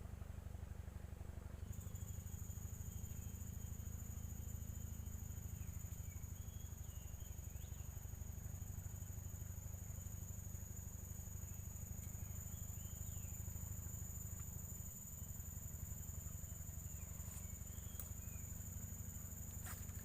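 Insects trilling in one continuous high-pitched drone that begins about two seconds in, over a steady low rumble.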